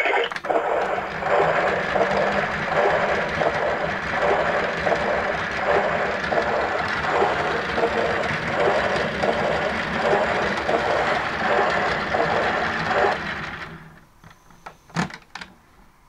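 Casdon toy Hotpoint washing machine running its wash cycle: a water-churning sound effect with a regular pulse, played through the toy's speaker, which stops about 13 seconds in. A few plastic clicks near the end as the toy's door is opened.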